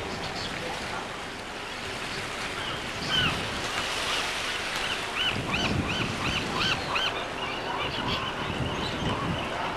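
Gulls calling in a rapid series of short arched cries from about three seconds in, over a steady rush of wind and water.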